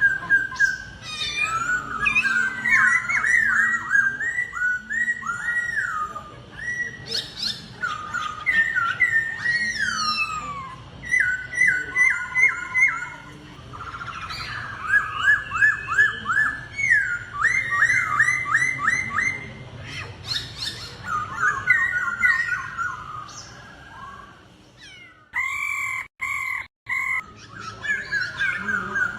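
Laughingthrush (khướu) in full competitive song: loud runs of rapidly repeated, sweeping whistled notes, each phrase changing to a new note type. The song breaks off briefly about 25 seconds in, then resumes.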